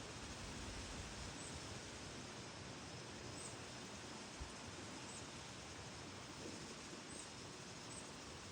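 Steady hiss of wind through tree leaves, with faint, short, high bird chirps every second or two, about five in all.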